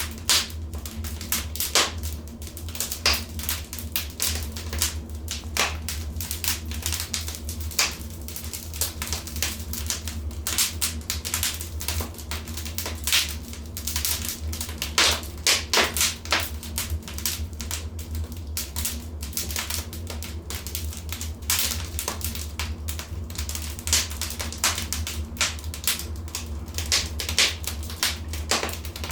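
Wood fire crackling in a fireplace: irregular sharp pops and snaps of varying loudness over a steady low rumble.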